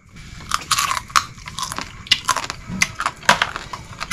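Crab shell crunching close up as the cooked crab is bitten and chewed: a quick, irregular run of sharp crackles starting about half a second in.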